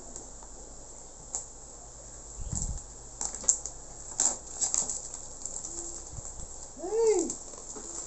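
Packaging being handled and opened: rustling with a run of sharp clicks and a low thump about two and a half seconds in. Crickets chirp steadily in the background.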